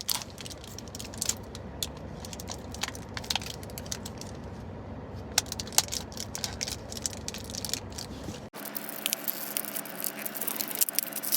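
Plastic packaging of a squishy toy crinkling, crackling and rattling in a stream of sharp clicks as it is worked open by hand. About eight and a half seconds in, the background changes abruptly to a steady low hum.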